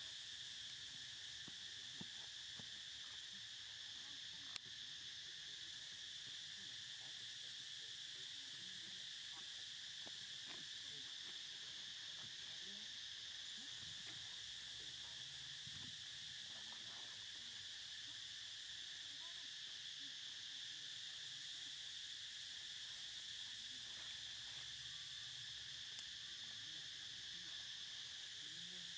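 Steady, unbroken high-pitched drone of an insect chorus, with a single sharp click about four and a half seconds in.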